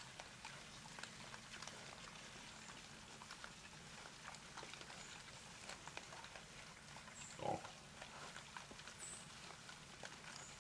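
A herd of feral hogs rooting and feeding in dry leaf litter: faint scattered crunching and rustling clicks, with one short, louder grunt about seven and a half seconds in.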